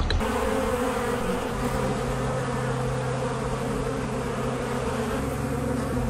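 Honey bees buzzing around their hive in a tree, a steady humming drone.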